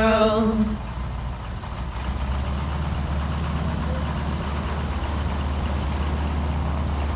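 Cessna 152's four-cylinder Lycoming engine running, a steady low drone. The tail of a song fades out in the first second.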